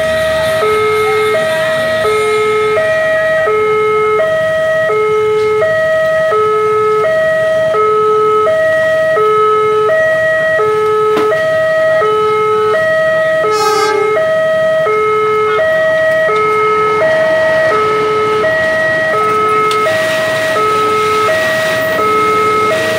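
Railway level-crossing warning alarm sounding a steady high-low two-tone chime over and over while the barrier is down. In the last few seconds the rolling noise of a container freight train crossing rises beneath it.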